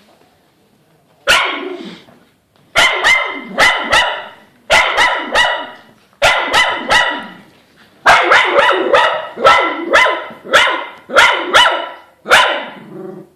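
A dog barking in play, loud and repeated: a single bark, then quick runs of barks about half a second apart, coming almost without a break in the second half.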